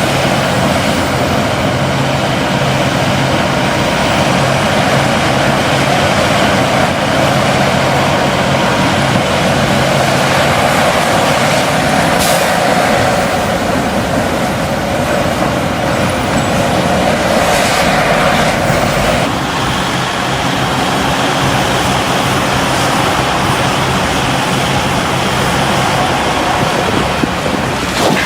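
Heavy diesel machinery running steadily: an excavator and trucks working together with a constant engine hum. A sharp click comes about twelve seconds in, and the engine note changes about two-thirds of the way through.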